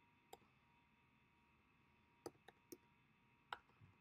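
Faint computer keyboard keystrokes: about five separate clicks, with two close together near the end.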